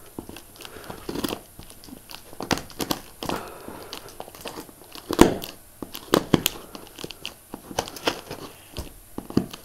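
Scissors cutting and picking at clear plastic packing tape on a cardboard box, with irregular crinkles, crackles and snips. The loudest sharp snaps come about five and six seconds in.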